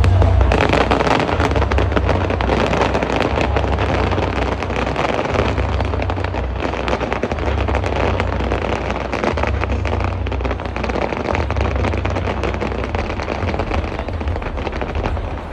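Fireworks going off in rapid, continuous succession: dense crackling and popping over a steady barrage of deep booms.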